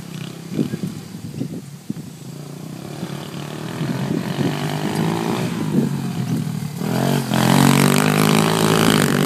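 125cc four-stroke quad bike engine revving unevenly as it drives toward the listener, getting steadily louder. It is loudest near the end, when it turns hard close by, throwing up dirt.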